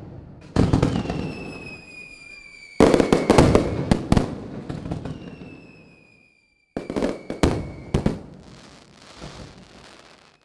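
Fireworks going off: a series of sharp bangs, each trailing away in crackle, with a high whistle that falls slowly in pitch before the bangs. The sound cuts out abruptly about six seconds in, then another quick run of bangs follows.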